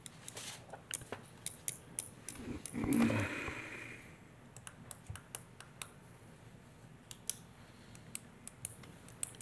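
Irregular small clicks and taps of pens and papers being handled at a desk near the microphones, with a short low vocal sound about three seconds in.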